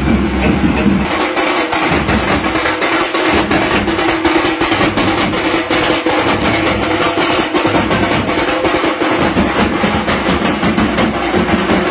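Music with fast, dense drumming.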